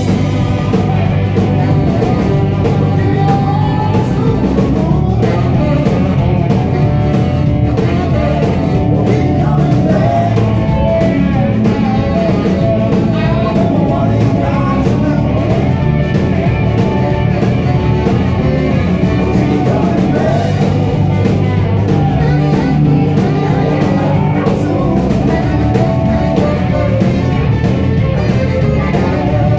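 A live blues-rock band playing loudly: saxophone and electric guitars over bass and a drum kit.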